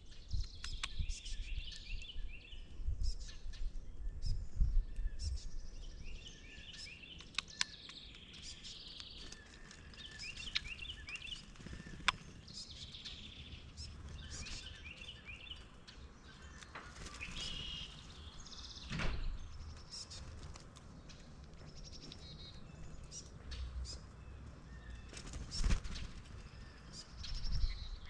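Several songbirds chirping and singing, with repeated short trills and calls. A few sharp clicks and some low thumps come and go underneath.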